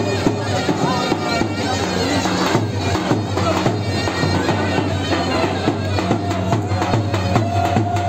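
Live folk music played out in the open: a shrill reed wind instrument carries the melody over drum beats, loud and steady throughout.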